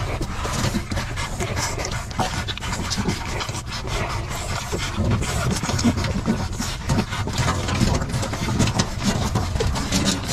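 Puppies nursing from a mother dog and jostling for her teats: a steady, busy run of suckling, snuffling and fur-rubbing noises with small clicks.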